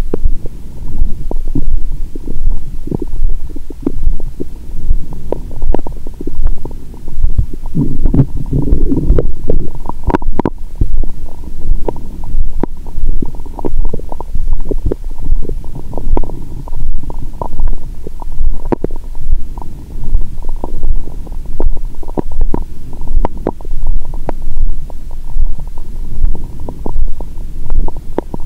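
Stomach gurgling and rumbling picked up through a stethoscope microphone pressed to the belly, with a louder rumble about eight seconds in, over a soft regular thump about once a second. A full stomach is digesting a heavy meal with wine.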